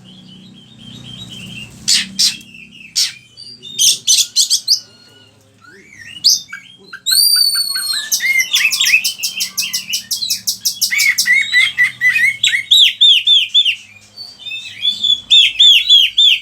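Oriental magpie-robin (kacer) singing a varied, mimicry-rich song. A few scattered calls come first, then from about seven seconds a long, rapid stream of whistles, fast trills and slurred notes.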